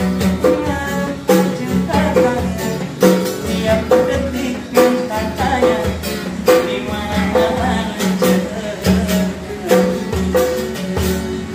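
A man singing to his own strummed acoustic guitar, with a djembe-style hand drum keeping a steady beat.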